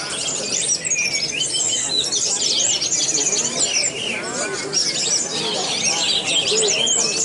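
Orange-headed thrush singing steadily in the contest 'teler' style, its head bent low, amid a dense mix of overlapping chirps, trills and whistles from the birds around it.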